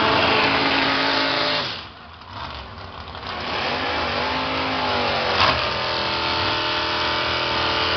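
Drag race car engines at high revs, shifting pitch, stopping abruptly about two seconds in. Then a dragster's engine rises and falls in pitch and settles into a steady run, with one sharp knock about halfway through.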